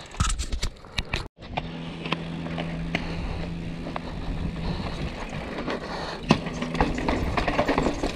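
Yeti SB150 mountain bike rolling down a dry dirt trail, picked up by a helmet-mounted camera: tyre and rolling noise with rattles, clicks and knocks over bumps, and a steady low hum while it coasts. The sound cuts out briefly about a second in.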